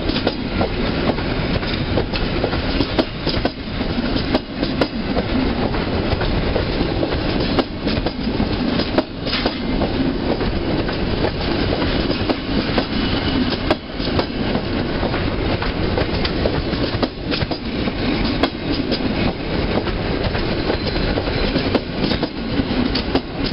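Passenger coaches of a departing train rolling past along the platform: a steady rumble of steel wheels on rail, broken by irregular sharp clacks as the wheels cross rail joints.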